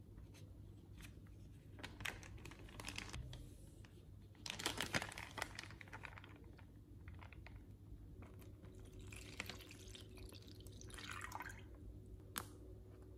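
Lemonade sloshing and dripping in a clear plastic zipper bag, with soft crinkling of the bag as it is squeezed and handled.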